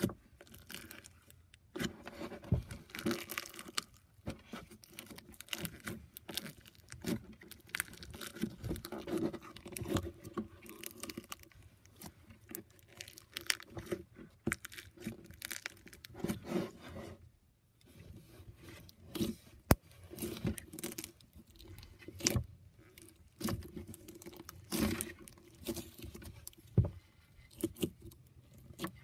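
Crunchy bead-filled slime being poked, pressed and squeezed by fingers, giving dense, irregular crunching and crackling clicks.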